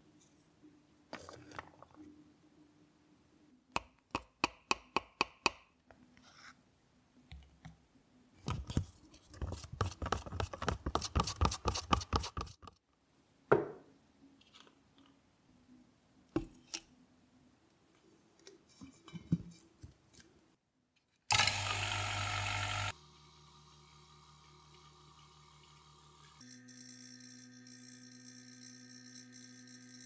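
Wooden craft stick stirring epoxy resin and mica powder in a thin plastic cup, the stick clicking and scraping against the cup wall in quick rhythmic strokes, then a few single knocks as the cup is set down. Near the end comes a short loud noisy burst, followed by steady sustained tones.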